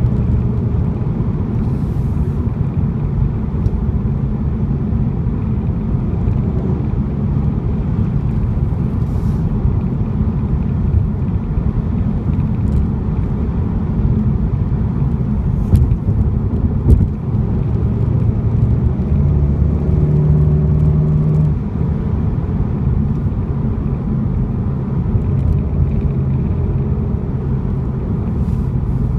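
Steady low rumble of a 2015 VW GTI Mk7 car running, with a few short clicks scattered through it and a sharper knock about seventeen seconds in.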